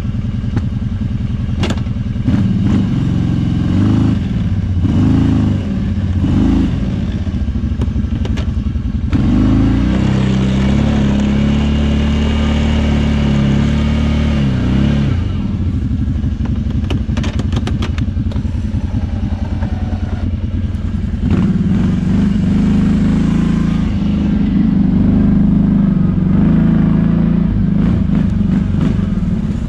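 Kawasaki Brute Force 650i ATV's V-twin engine working while plowing snow, its revs rising and falling: climbing over the first few seconds, held high for several seconds around the middle, dropping back, then rising again in the second half. Scattered clicks and clatter sound over the engine.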